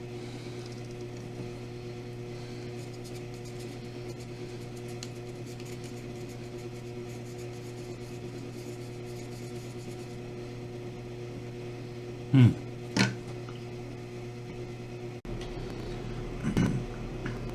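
Steady electrical hum, with two short loud sounds about twelve and thirteen seconds in and another near the end. The background changes abruptly shortly before the end.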